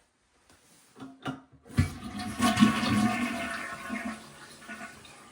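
Toilet flushing: a couple of short clicks, then about two seconds in a loud rush of water that slowly dies away.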